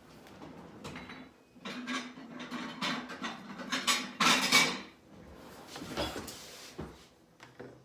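A small plate being handled and set down, with dishes clinking and knocking; the loudest clatter comes a little past the middle.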